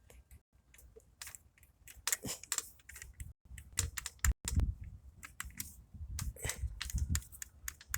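Handling noise of a small die-cast toy minivan turned over in the hands: irregular light clicks and taps, with a few low rumbling thumps in the second half.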